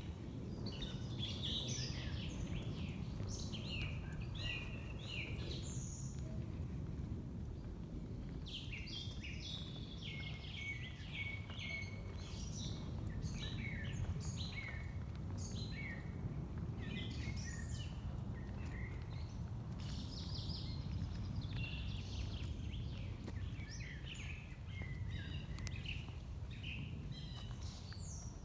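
Several forest songbirds singing at once, with a steady stream of overlapping short chirps and warbled phrases, over a steady low background rumble.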